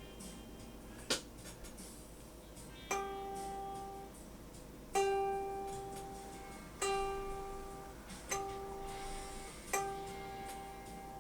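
A string on a Hofner 459 VTZ guitar plucked five times on the same note, each note ringing and fading for a second or two, while its intonation is checked against a strobe tuner. A sharp click comes about a second in.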